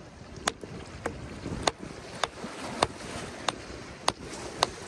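A hammer taps a small rock nodule about seven times in quick succession, each strike a sharp, light clink, as the nodule is split open to look for an ammonite fossil inside.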